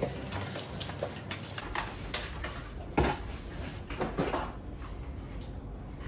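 Handling noise from unboxing: rustling of paper and plastic-bagged attachments and light knocks against a cardboard box, irregular, with a sharper knock about three seconds in.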